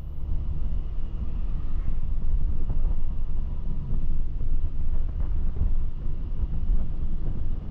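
Steady low rumble of a vehicle driving along a road, with wind buffeting the microphone.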